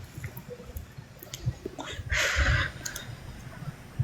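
A woman's wet mouth noises with small clicks, and a short breathy rush of air about two seconds in.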